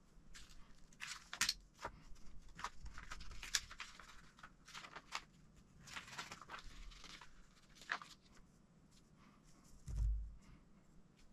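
Pages of a paper instruction booklet being turned, giving crinkly paper rustles and light clicks over the first seven seconds or so. A single dull thump comes near the end.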